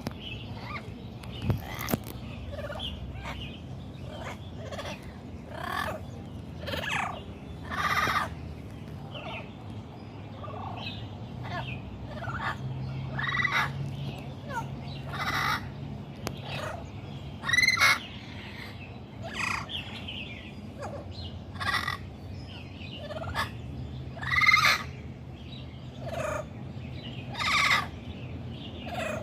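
A parrot calling in a string of short squawks and whistles, about one every second or two, some gliding up or down in pitch.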